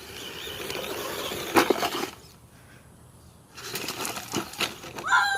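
Remote-control toy car driving over rough ground in two spurts of about two seconds each, its motor and tyres running with a few knocks and clicks as it bounces.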